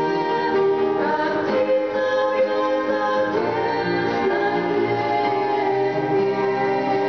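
Two women singing a Christian song as a duet into microphones, with instrumental accompaniment.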